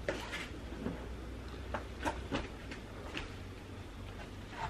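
About seven light, irregular knocks and clicks as the wooden-framed IKEA Ektorp sofa is handled and tipped up onto its side.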